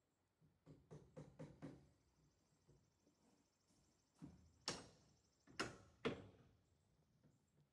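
Faint knocks: a quick run of about five, then four louder, sharper ones about half a second apart.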